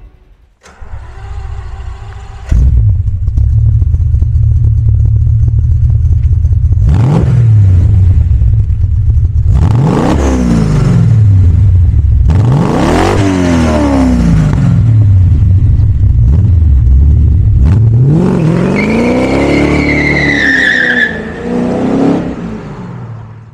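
1971 Maserati Ghibli 5000 SS's quad-cam V8 cranking on the starter and catching about two and a half seconds in, then idling and revved hard several times, each rev rising and falling in pitch. Near the end the tyres squeal with a high falling screech as the car pulls away in a burnout, and the engine sound drops off.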